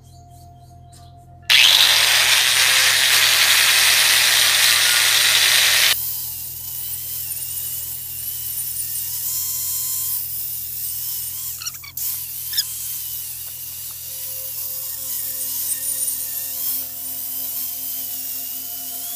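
Handheld angle grinder grinding paint off a bicycle frame. It starts about a second and a half in with a loud, harsh grinding. At about six seconds it drops to a quieter, steady motor whine with lighter grinding, and there are a couple of sharp ticks about halfway through.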